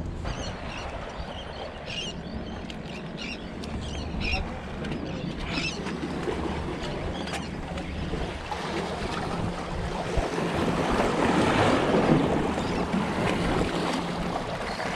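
Sea waves washing and splashing against the boulders of a rock jetty. The wash builds and grows louder in the last few seconds.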